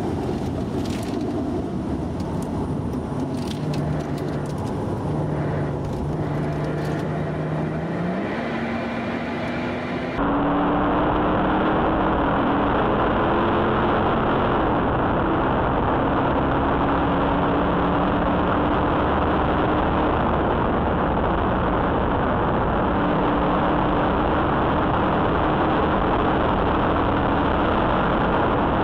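Mercedes-AMG car engine heard from inside the car at track speed, under heavy wind and road noise, its note holding steady and then rising as it accelerates. About ten seconds in, the sound cuts to a louder, duller recording of the engine and wind noise, the engine note rising and falling through the corners.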